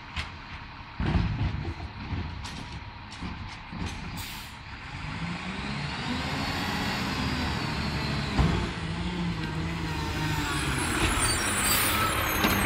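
Mack LEU613 garbage truck driving up and drawing closer, its diesel engine growing louder, with a squeal and hiss of air brakes as it stops near the end. A few sharp knocks in the first few seconds.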